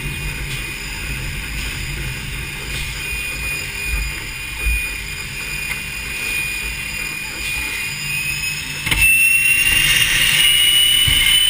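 An L-29 Delfin's Motorlet M-701 turbojet heard from inside the cockpit on landing: a steady jet whine over a low rumble, with a couple of low bumps. About nine seconds in there is a sharp click, the sound suddenly gets louder, and the whine slowly rises in pitch.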